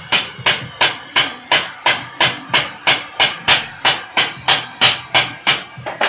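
Hand hammer striking metal in a steady rhythm, about three ringing blows a second, stopping shortly before the end.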